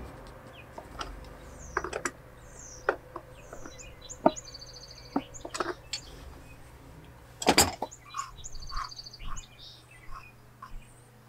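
Scattered clicks and knocks of a plastic water-filter housing and a brass fitting being handled and threaded together, with one louder clunk about halfway through. Birds chirp in the background with short, high, trilled calls repeated several times.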